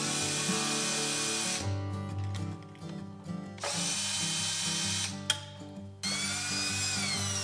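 Cordless drill/driver running on screws at an aircraft's landing-gear fairing, in three bursts of a few seconds each; the pitch drops during the last burst. Background music plays underneath.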